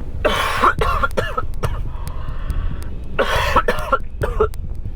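A man coughing hard in two bouts of several coughs each, the second about three seconds after the first. A low, steady rumble of a moving car's cabin runs underneath.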